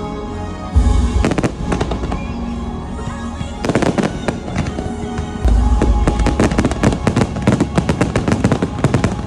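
Fireworks show with its music soundtrack playing underneath. Deep booms come about a second in and again around six seconds, and dense crackling fills the second half.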